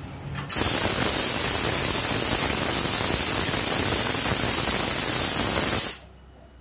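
Steam hissing out of a pressure cooker as its whistle weight is lifted to let the remaining pressure out after cooking. The steady hiss starts suddenly about half a second in and cuts off abruptly near the end.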